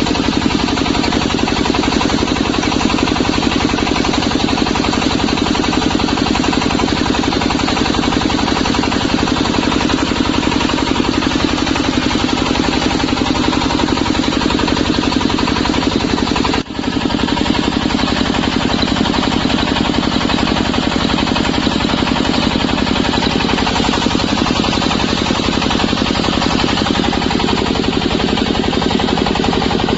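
Portable water well drilling rig's 25 hp diesel engine running steadily at a constant, rapid beat, with a momentary break a little past halfway.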